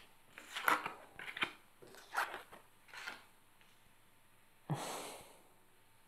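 Oracle cards being drawn and laid on a cloth-covered table: four short soft slaps and slides, about one a second. Near the end comes a brief breathy hiss.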